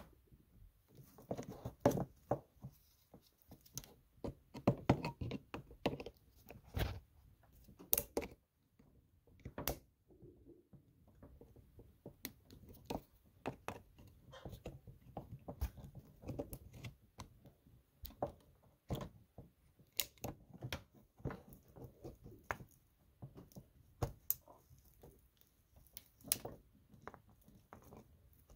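Pliers and hands working on a snowmobile fuel pump's hose clamps and rubber fuel lines: irregular clicks, taps and rubbing, with sharper clicks every second or two.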